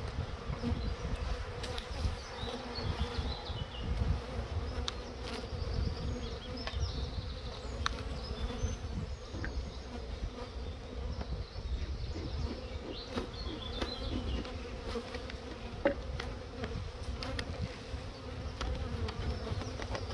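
Honeybees buzzing steadily around an opened hive, with occasional short light clicks and knocks.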